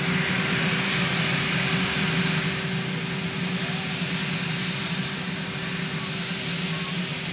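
Marine One, a VH-3D Sea King helicopter, running on the ground: its turbines make a steady whine and rush with a thin high tone held throughout.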